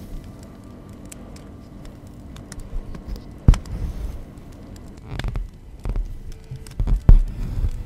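Embroidery needle and floss being worked through fabric drum-tight in a wooden embroidery hoop: a few sharp pokes and soft thuds on the taut fabric with the rustle of thread drawn through, the sharpest about three and a half seconds in and just after seven seconds.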